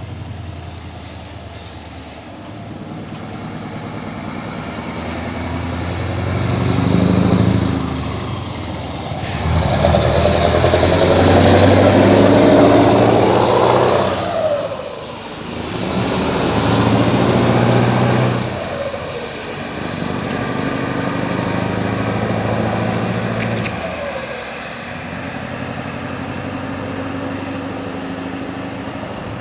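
Scania truck engine running through an open-pipe (straight, unsilenced) exhaust. Its note rises and falls in several swells, loudest in the middle, with a brief dip about halfway through.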